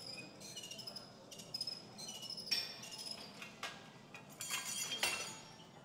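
Metal weight plates and barbell clinking and clanking a few times, loudest about two and a half seconds in and again near the end. Short high chirps repeat about twice a second in the background.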